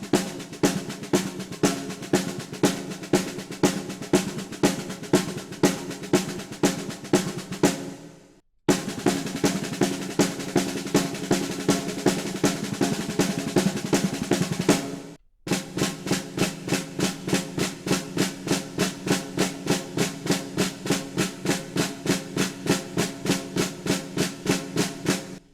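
Snare drum played with sticks in paradiddle and flam rudiment exercises: fast, even streams of strokes with regularly spaced accents. It comes in three passages with brief stops about 8 and 15 seconds in.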